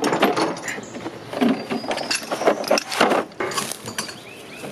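Metal parts being handled and set down: irregular clinks, knocks and rattles.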